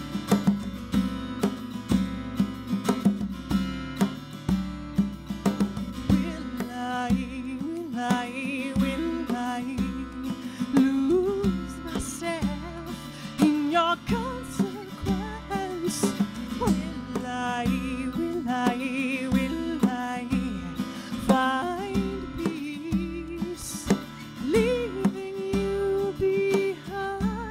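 Live acoustic duo: a steel-string acoustic guitar and djembe hand drumming playing a steady groove, with a woman singing from about seven seconds in.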